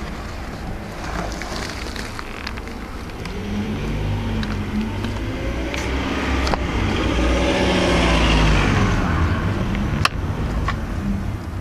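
A car engine swelling in pitch and loudness to a peak about eight seconds in, then falling away. Light rubbing and clicks from floor mats being handled run through it, with a sharp knock about ten seconds in.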